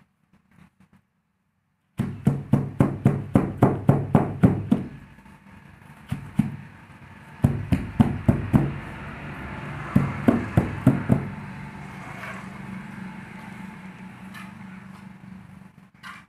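Rapid knocking on plastic roof-tile moulds filled with wet concrete, tapped to settle the mix and bring the slurry to the surface. The knocks come in three runs of about four a second, over a steady low hum that fades near the end.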